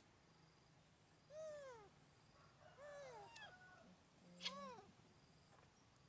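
Young macaques giving three faint, short coos, each rising then falling in pitch; the middle one is two calls overlapping. A sharp click comes just as the third coo starts.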